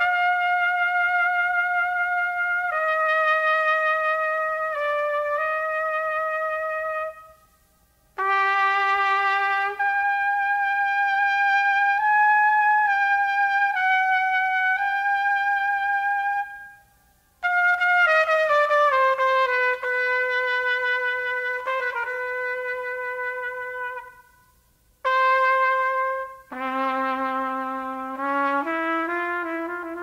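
Film soundtrack music: a single melody line of long, held notes, broken by three short pauses, with a second, lower line entering under it near the end.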